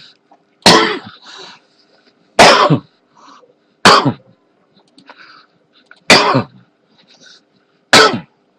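A person coughing hard five times, one cough every one and a half to two seconds, with a faint steady hum underneath.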